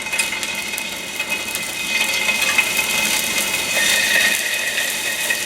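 Scallops searing in hot oil in a pan over medium-high heat: a steady, dense sizzle with fine crackling, a little louder from about two seconds in.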